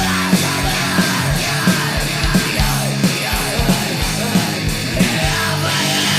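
Heavy metal recording: distorted electric guitar and a pounding drum kit with shouted vocals over the top.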